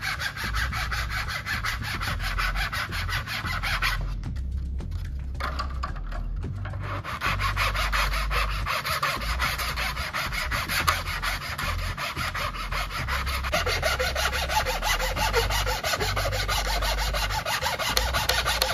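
A hand file rasping back and forth along the edge of a thin 3D-printed plastic part in quick, even strokes, flattening the edge for a glued joint. The filing stops briefly about four seconds in, then resumes.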